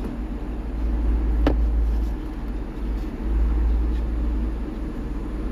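A low, steady rumble with one sharp click about one and a half seconds in.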